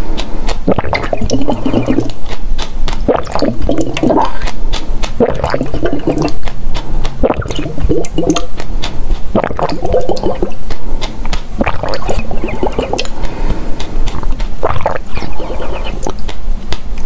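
Close-miked drinking from a plastic cup: repeated gulps and swallows with liquid sloshing, and small sharp mouth clicks between them.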